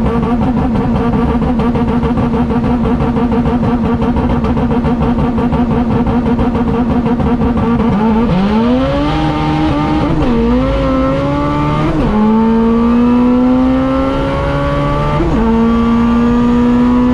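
Drag-race car engine held at steady high revs on the start line, then launching about halfway through and pulling hard, its revs climbing and breaking at each of three gear changes.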